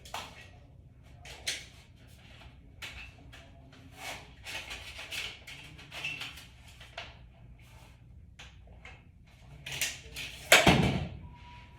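Hand work on under-carpet raceway parts: a run of light clicks and short scratchy strokes, with one louder knock near the end.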